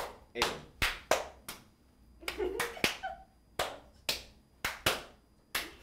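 Single handclaps passed from person to person around a circle, about a dozen sharp claps at uneven spacing, roughly two a second. A brief voice comes in near the middle, between claps.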